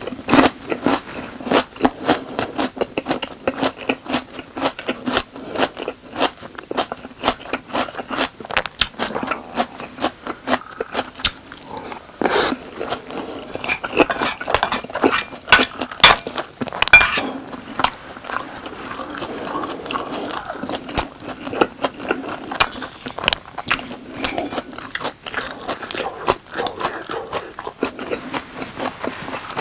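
Close-miked chewing and biting of boneless chicken and rice: a dense, uneven run of small crunches and clicks from the mouth.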